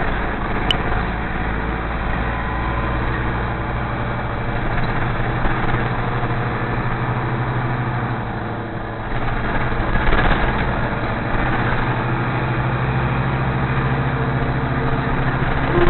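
Nova Bus LFS transit bus's engine and drivetrain running as it drives, heard from inside the passenger cabin as a steady low hum. It eases off briefly about nine seconds in, then comes back louder.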